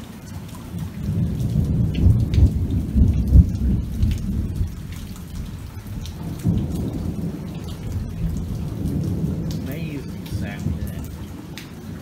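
Heavy rain falling on a screened pool enclosure and into the pool, with a low rolling rumble of thunder that builds about a second in, is loudest around three seconds in, and then eases to a lower rumble.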